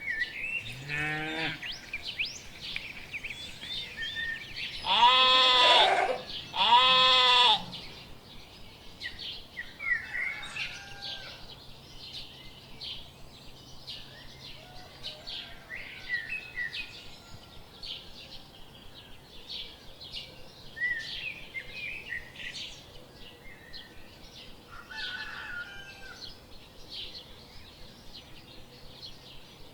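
Livestock bleating: a short call at the start, then two loud, drawn-out, wavering bleats about five and seven seconds in, with small birds chirping throughout.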